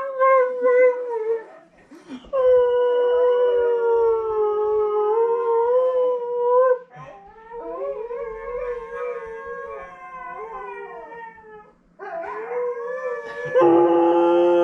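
Huskies howling in long, drawn-out howls, with several voices overlapping at times and a brief pause before the howling picks up again and grows louder near the end.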